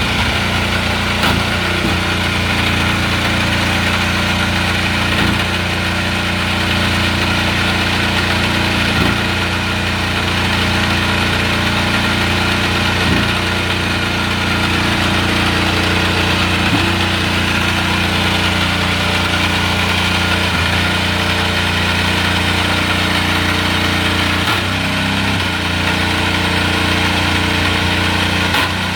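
An engine idling steadily at a constant speed, with a faint tick about every four seconds.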